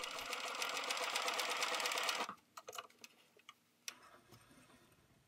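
Bernina 1230 sewing machine running fast and evenly, stitching a zigzag test seam through two layers of fabric. It stops suddenly about two seconds in, followed by a few light clicks as the fabric is handled and drawn out.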